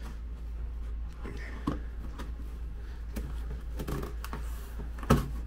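Hands handling a cardboard shipping box: scattered scrapes, rustles and light knocks on the cardboard, with one sharp tap about five seconds in, over a steady low hum.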